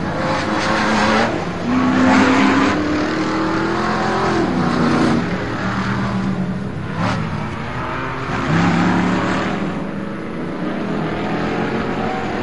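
Engines of several V8 off-road race trucks and Ultra 4 buggies racing on a dirt track, their revs rising and falling as they accelerate and lift for the turns, with louder surges about 2 s and 9 s in.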